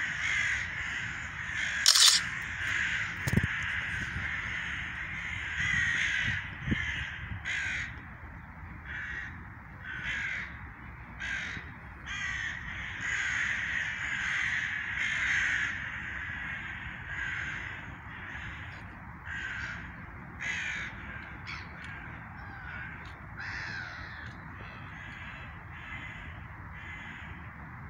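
Many birds calling harshly over one another, the calls thinning out over the last few seconds, with one sharp click about two seconds in.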